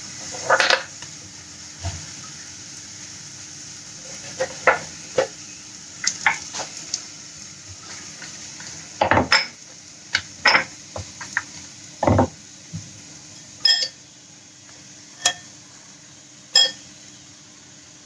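Paratha frying with ghee on a nonstick tawa, a steady soft sizzle under scattered clinks and knocks of metal kitchen utensils and pans. Two heavier clunks come about nine and twelve seconds in, and a few ringing metallic clinks follow near the end.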